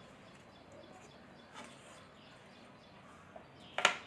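A quiet room with faint bird chirping, then near the end a sharp double clack as a wooden ruler is set down.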